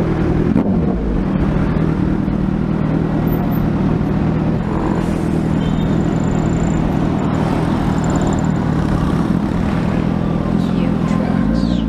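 Car's engine and exhaust running steadily while driving, a low, even engine note over road noise. The owner suspects an exhaust leak, saying the exhaust sounds less deep and full than it should.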